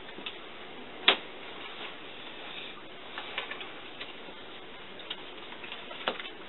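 Scattered light ticks and taps of playing cards being handled at a card table, with one sharper click about a second in, over a steady background hiss.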